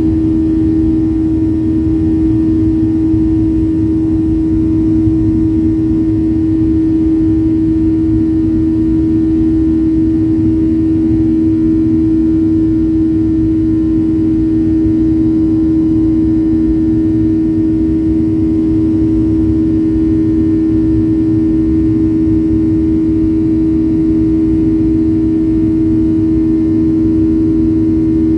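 Airliner's wing-mounted turbofan engines at climb power, heard from inside the cabin as the plane climbs out after takeoff: a loud, steady drone with a strong low hum over a rumble.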